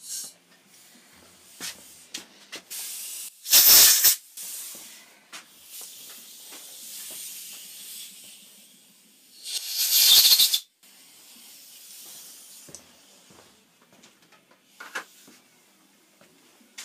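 Two short hissing blasts of compressed air, as from an air nozzle clearing chips from freshly drilled and tapped holes: a brief one about three and a half seconds in and a longer one of about a second near ten seconds in. Light clicks and handling noises come between them.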